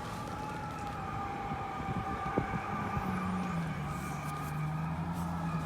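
A steady humming drone made of several held tones: a middle tone drifting slightly down in pitch and a low tone that steps down about halfway through. Its source is unidentified, a recurring sound that other people also hear and cannot explain.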